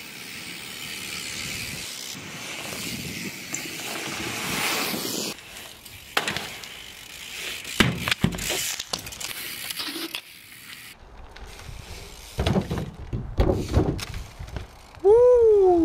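BMX riding sounds. For about five seconds the tyres roll with a steady hiss, then come bursts of sharp knocks and clatters as the bike lands and hits the ground. A short, loud yell rises and falls near the end.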